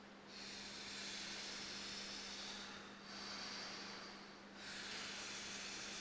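A karateka's slow, forceful breathing through the mouth: three long hissing breaths, each swelling and fading, over a faint steady hum.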